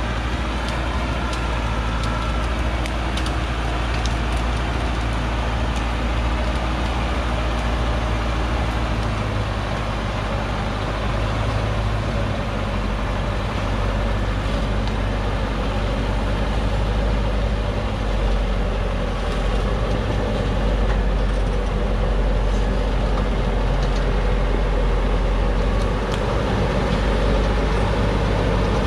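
Diesel engine of a loaded Hoa Mai logging truck running steadily as it crawls down a steep, muddy slope, getting louder in the second half as it comes closer.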